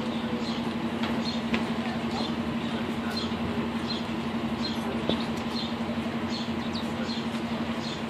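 Sparrows chirping, short high chirps about one or two a second, over the steady pulsing hum of an idling bus engine.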